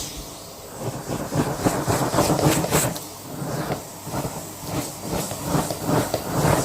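Close-miked crunching of something crisp, a rapid run of crackly crunches in three bursts with short pauses between.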